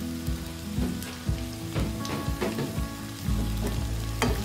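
Sliced onions and grated ginger sizzling in hot oil in a nonstick wok, with a few sharp crackles.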